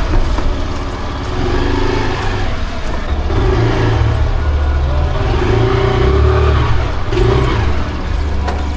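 Motor vehicle running, a loud low rumble with engine and road noise.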